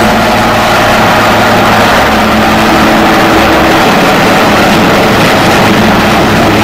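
HH-3F Pelican search-and-rescue helicopter flying past low, its rotor and turbine engines making loud, steady noise with a slight shift in tone about four seconds in.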